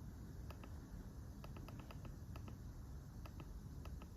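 Faint, irregular clicks of buttons being pressed on a handheld automotive diagnostic scan tool while stepping through its menus, about a dozen in all.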